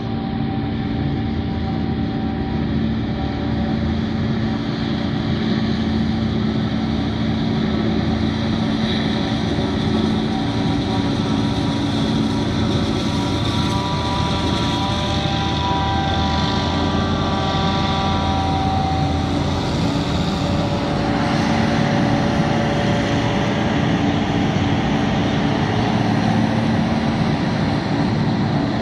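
John Deere self-propelled forage harvester chopping maize and blowing the silage into a tractor-drawn trailer alongside: a steady, loud machine drone with higher whining tones over it for a while midway.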